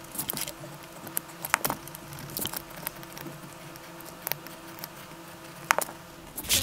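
Pencil drawing on paper: irregular short scratches and taps of the pencil tip, over a faint steady hum.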